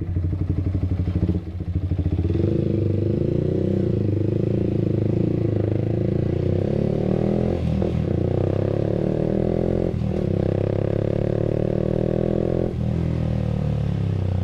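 Yamaha R15 V3's 155 cc single-cylinder engine running through an R9 H2 series aftermarket exhaust with the dB killer removed, heard while riding. The engine note climbs steadily, broken by a few brief dips a couple of seconds apart, and eases off after the last dip near the end.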